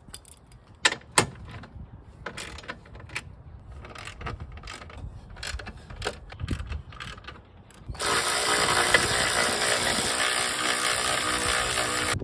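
Hand ratchet clicking in short runs as bolts on the strut brace are loosened. About eight seconds in, a cordless power tool starts and runs steadily, much louder, to the end.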